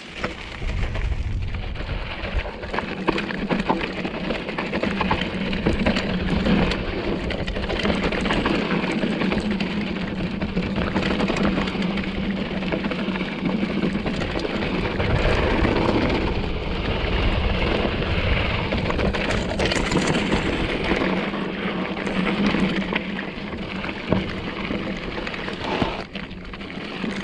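2014 Giant Trance 3 full-suspension mountain bike riding a rocky trail: a continuous crunch and rattle of tyres over gravel and rock, with many small knocks and clatters from the bike. It starts abruptly and dips briefly near the end.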